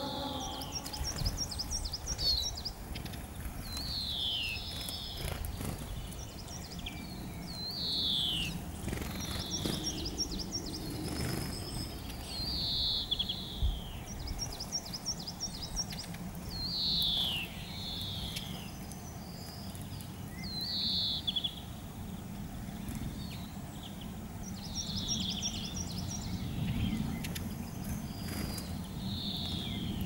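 Small songbirds calling: a clear note falling in pitch about every two seconds, with short, fast, high twittering runs between them, over a low steady background rumble.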